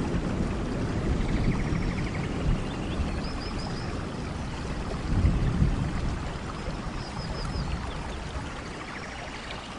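Waterfall: a steady rush of falling water, with short high chirps repeating every few seconds above it. The rush eases slightly toward the end.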